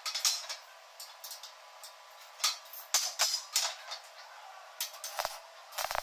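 Small hammer knocking on a steel frame: a handful of sharp metallic knocks at uneven intervals, several of them close together about halfway through and again near the end.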